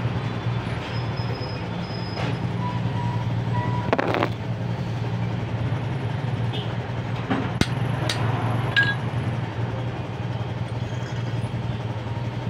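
A steady low engine hum from a running vehicle, with a few sharp metal clicks and knocks of hand tools on a removed distributor housing; the loudest knocks come about four and seven and a half seconds in.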